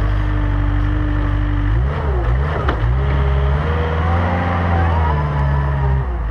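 Gehl AL540 articulated wheel loader's engine working under load as it pushes dirt. Its pitch dips and recovers about two seconds in, with a single clunk, then holds higher with a rising whine before dropping near the end.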